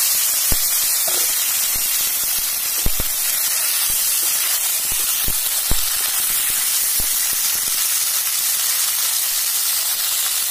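Freshly washed beetroot sticks frying in hot oil in a metal kadai, a loud steady sizzle and hiss of steam from the wet beetroot. A metal spatula knocks against the pan about six times in the first seven seconds as they are stirred.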